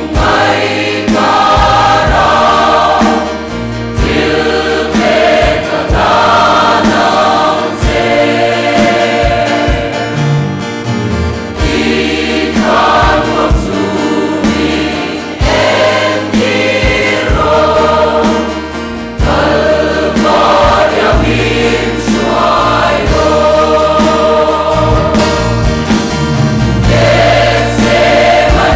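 A large choir singing a Mizo hymn in phrases over steady low bass notes.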